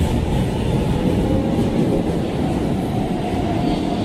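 Brussels metro train pulling out of the station platform: steady rumble of wheels and running gear, with a thin motor whine that rises a little as it pulls away.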